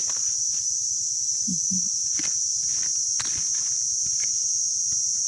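Steady high-pitched drone of an insect chorus in the forest, with a few brief rustles or footsteps on the forest floor about two and three seconds in.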